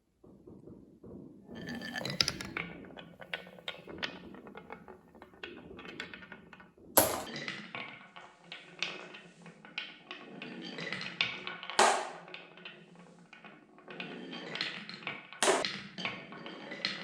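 Marbles rolling and clattering down a wooden marble-run track: a dense stream of small clicks and rattles that starts about a second and a half in, with three louder knocks about seven, twelve and fifteen seconds in.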